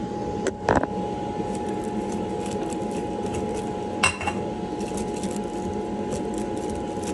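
Blower motor of a K&N Air Flow Demonstrator running steadily with a constant whine. Sharp clinks and knocks come just under a second in and again about four seconds in, as the filter parts are handled on the machine.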